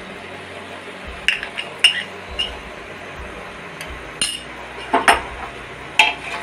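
Mutton sizzling steadily in hot ghee in a pressure cooker, with several sharp metal clinks of a spoon against the pot.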